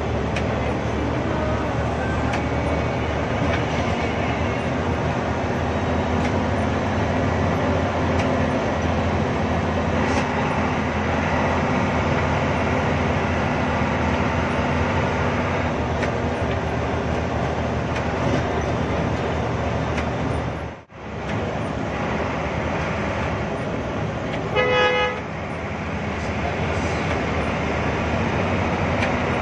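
Diesel engine of a Hino AK8 bus running steadily under way, heard from inside the cabin. A short horn toot sounds about 25 seconds in, and the sound drops out for a moment just before it.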